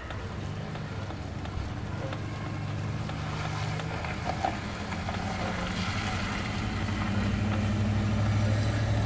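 Thunder rolling, a long low rumble that builds over several seconds and is loudest near the end.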